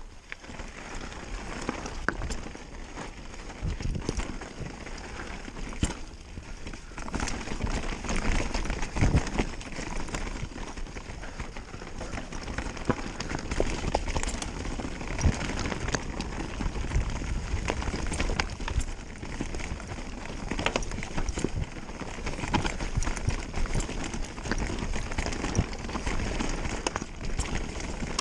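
Specialized Turbo Levo electric mountain bike riding down a rocky dirt trail: tyres crunching over stones and dirt, with frequent sharp knocks and rattles from the bike as it hits rocks. A steady low wind rumble sits on the microphone underneath.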